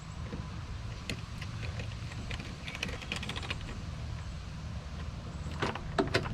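Scattered clicks and rattles of a truck door's repaired interior handle and latch being worked, with a bunch of clicks about three seconds in and the sharpest ones near the end, over a low steady rumble.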